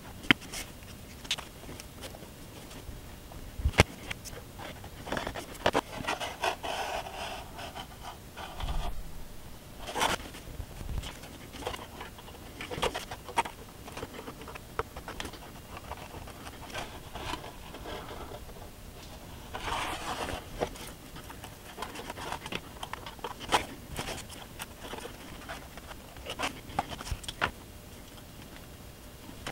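Small hand-work noises on a workbench: scattered clicks and taps, with two stretches of scraping and rubbing, a few seconds in and again about two-thirds through, as a paper sign is pressed and rubbed down onto a model building's clapboard siding with a small tool.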